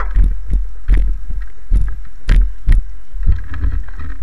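Low wind and handling rumble on a motorcycle rider's camera microphone, with a series of irregular knocks and thumps against the mic.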